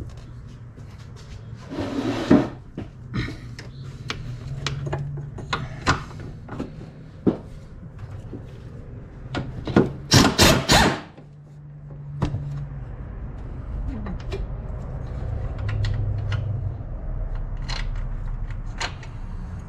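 Pneumatic wrench run in short bursts on the strut-mount nuts: a brief burst about two seconds in and a louder, rapidly rattling burst of about a second near the middle, loosening the nuts. Between them come scattered clicks and knocks of sockets and tools on metal, over a steady low hum.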